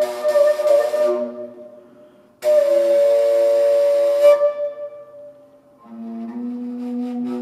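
Flute playing slow, breathy held notes. A long sustained note begins abruptly about two and a half seconds in and fades out with a ringing tail, and a lower note follows near the end.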